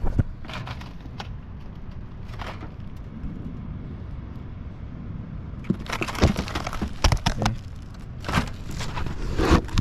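Crackling, scraping and knocking from work on asphalt roof shingles, in two bunches of sharp clicks about six and eight seconds in, over a low rumble.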